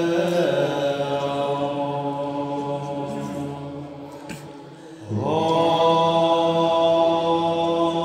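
Chanted mantra: a voice holding long, steady notes. The phrase fades away around four to five seconds in, and a new one starts abruptly just after five seconds with a short upward slide in pitch.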